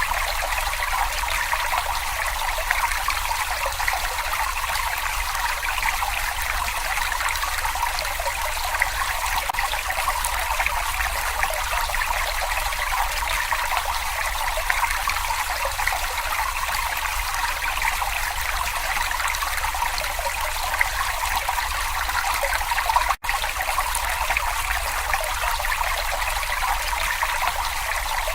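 Small brook babbling and trickling steadily over stones, broken once by a split-second dropout late on.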